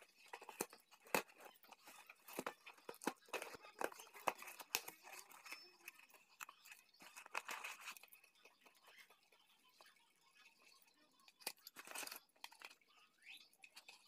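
Cardboard box and crumpled kraft-paper packing being handled as the box is unpacked: rustling and crackling with many sharp little clicks, busiest in the first five seconds, then in short bursts.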